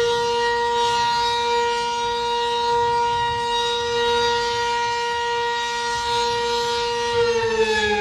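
Civil defence siren wailing: a single pitched tone that has already risen, holds steady for about seven seconds, then starts to fall near the end.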